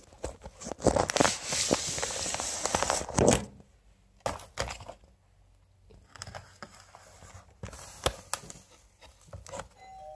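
Clear plastic packaging of clip-in hair extensions crinkling and rustling as the packs are handled, loud with sharp crackles for the first three seconds or so, then quieter scattered crinkles.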